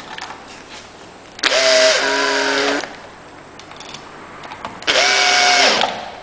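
Electric drill-driver run in two short bursts, each a steady motor whine lasting about a second, the first slightly longer.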